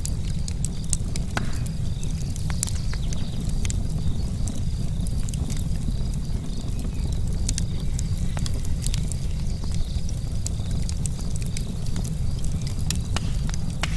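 Burning wood crackling: irregular sharp pops and clicks over a steady low rumble, with a faint steady high-pitched hum.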